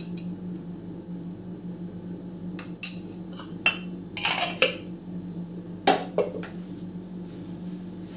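Stainless-steel kitchenware clinking and clattering: a steel spoon and steel bowls and containers being knocked together and set down on the counter. A scatter of sharp clinks, busiest about four to five seconds in, with two more knocks around six seconds, over a steady low hum.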